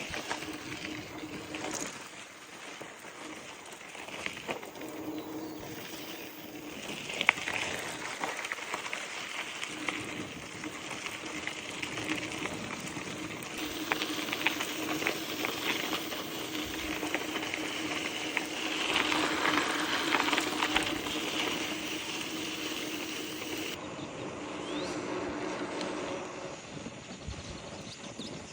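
Bicycle rolling along a trail: tyres running over dirt and gravel with many small clicks and rattles, and a steady hum that fades in and out.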